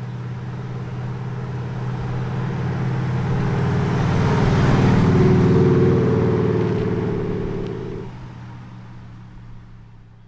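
Ford Transit Custom van's engine running at a steady pitch as it drives up and passes close by. It grows louder to a peak about halfway through, then fades away.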